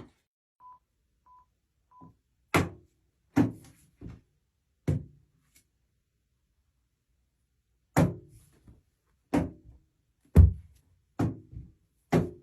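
Three short beeps about a second apart, then a series of about nine heavy thuds at uneven intervals, the loudest near the end.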